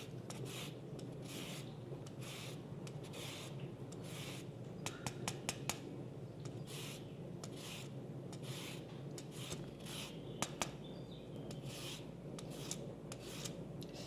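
Repeated rasping rubbing strokes, a little over one a second, with a few sharp clicks about five seconds in and again near ten seconds, over a steady low hum.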